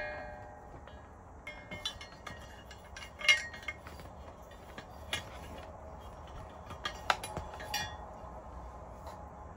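Clinks and knocks from Starlink dish parts being handled and fitted together: the mast going into the four-legged stand. A ringing clink at the start, then scattered knocks, the sharpest about three seconds in.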